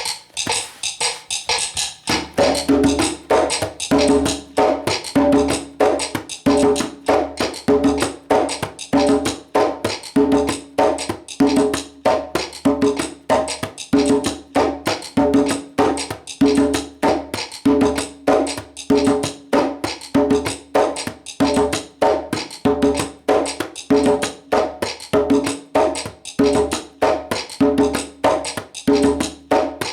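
Djembe playing a basic salsa drum pattern in an even repeating rhythm, with open tones and slaps, over a steady clicking cascara pattern on wood. The drum strokes come in about two seconds in.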